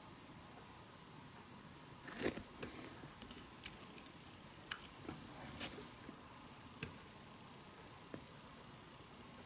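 Scattered small clicks and taps of fingers turning the plastic knobs of a KATO Power Pack Hyper DX model-railway controller, the loudest about two seconds in, over faint hiss.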